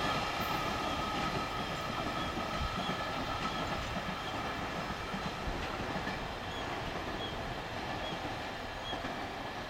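Freight train wagons rolling away on the rails, a steady rumble and clatter of wheels that slowly fades as the train draws off into the distance.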